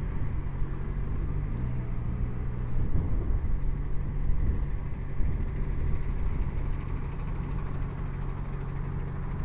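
Motorcycle engine running at low speed, a steady hum over road and wind noise, its note dropping slightly for a second or so about two seconds in.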